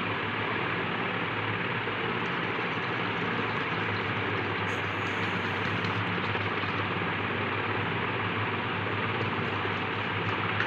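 Steady background hiss with a low hum, unchanging throughout, with no distinct mixing or pouring sounds standing out.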